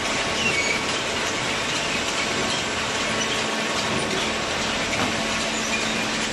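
Fully automatic horizontal cardboard baler running: a steady, loud mechanical din with a faint steady hum and scattered small clicks.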